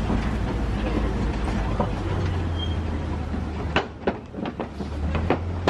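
Open-sided safari truck running with a steady low engine hum and road noise. From about four seconds in, a run of sharp knocks comes roughly three times a second as the wheels roll over the planks of a wooden bridge.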